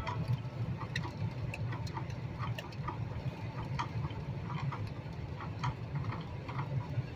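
Steady low rumble of a vehicle's engine and road noise heard inside the cab, with light, irregular ticks a little over one a second.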